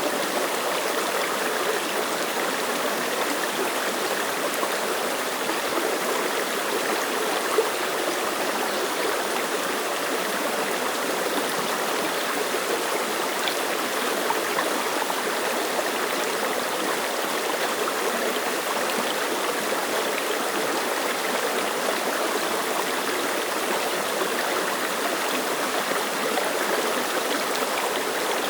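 Clear mountain stream running over rocks, a steady close rush and babble of water with small splashes.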